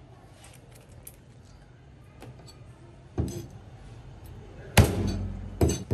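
Cleaver knocking against a whole carp and the plastic cutting block as the fish is cut: one sharp knock about three seconds in and two louder knocks close together near the end, with faint handling clicks before.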